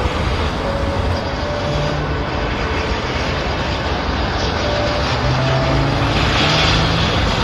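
Air-ambulance helicopter running, a steady noise with faint engine tones that shift a little in pitch.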